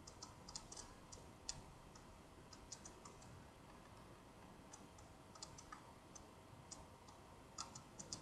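Near silence: faint room hiss with scattered, irregular light clicks.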